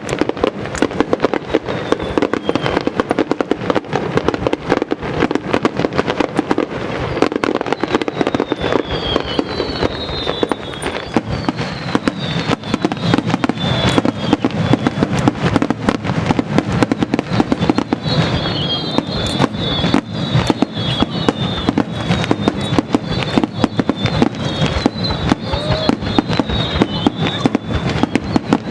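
A large starmine fireworks display firing continuously: a dense, unbroken barrage of shell bursts, with high whistling tones laced over the bangs in the second half.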